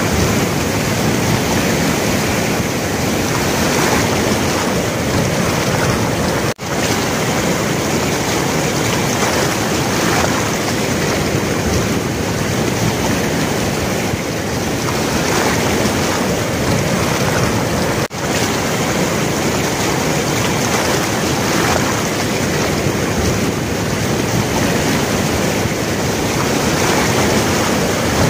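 Turbulent floodwater released through a barrage's open gates, rushing and churning in a loud, steady wash. The sound drops out for a split second twice, about six and eighteen seconds in.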